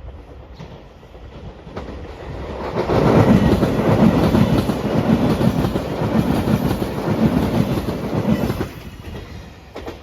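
A train passing at speed, its wheels clattering rhythmically over the rail joints. The sound builds about two seconds in, stays loud for about six seconds, then drops away quickly near the end.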